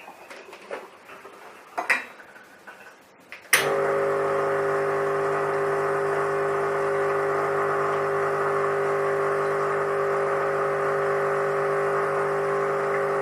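Espresso machine's pump switching on with a click about three and a half seconds in, then running with a steady hum as fresh water flushes through the freshly cleaned group head. A few light handling clicks come before it.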